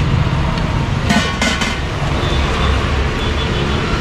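Steady street traffic rumble, with a brief clatter of steel serving bowls a little over a second in.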